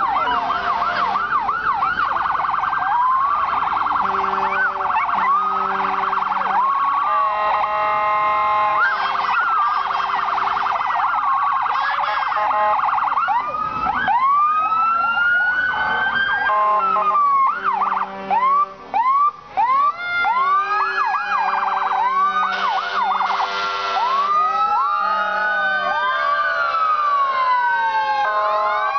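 A small dog howling along with wailing sirens, many rising and falling glides overlapping, with steady held tones starting and stopping among them. The sirens keep going while the dog pauses.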